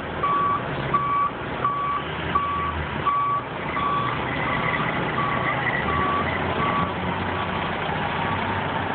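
Fire engine's reverse alarm beeping at an even pace, about one beep every 0.7 seconds, and stopping about seven seconds in, over the truck's engine and street noise.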